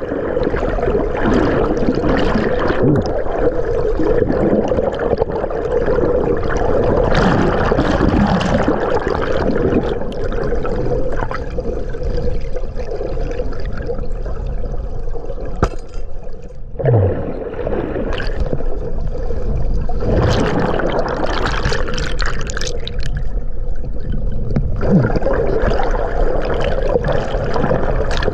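River water splashing and gurgling with a loud rushing sound that swells and eases every few seconds.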